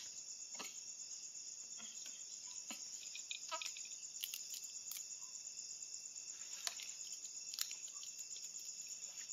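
Crickets chirring steadily in a high, continuous trill, with a few short clicks scattered through.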